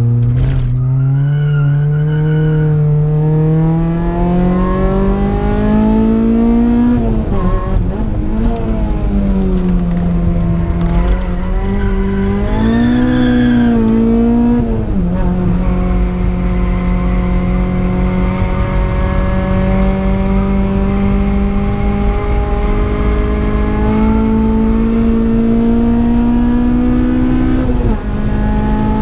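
Supercharged Honda K20 inline-four in an old Honda Civic, heard from inside the cabin under hard driving. The engine note climbs steadily, wavers up and down through a corner around the middle, then climbs steadily again for a long stretch, with a gear change near the end.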